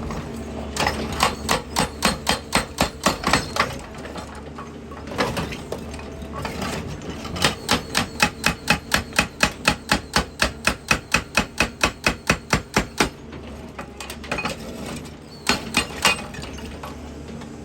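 Excavator-mounted hydraulic breaker hammering rock in rapid bursts of about four to five blows a second, with the excavator's engine running underneath. There are two long runs of blows and a short one near the end.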